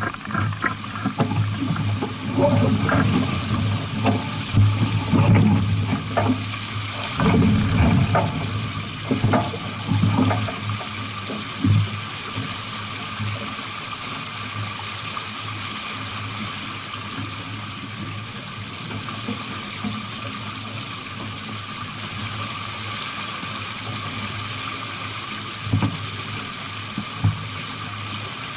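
Water rushing and splashing past a sailboat's hull, with irregular knocks and thumps for about the first twelve seconds, then a steadier rush with two short knocks near the end.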